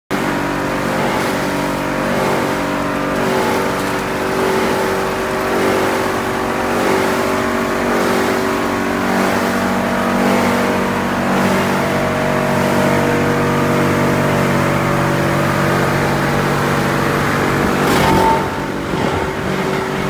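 Plastic film washing line running: electric motors and the inclined belt conveyor feeding waste PE and PP film bags make a steady mechanical drone with several held tones. A brief louder burst comes near the end.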